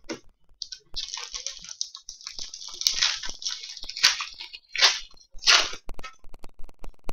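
Crinkling and rustling of plastic as trading cards are handled and sleeved, with a few louder crinkles in the second half.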